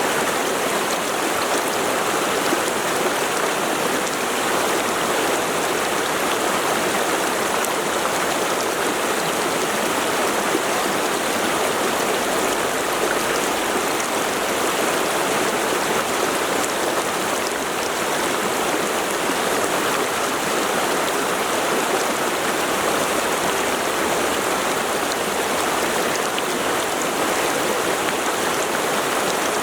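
Mountain river water flowing, a steady even rushing with no breaks.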